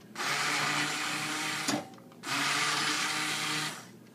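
Hand-held immersion blender running in two bursts of about a second and a half each, with a short pause between, puréeing thick vegetable soup in a glass bowl.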